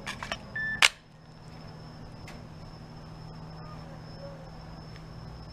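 Sharp clicks of Glock pistol parts being handled and fitted, a quick run of small clicks ending in one loud snap about a second in, then a steady low hum.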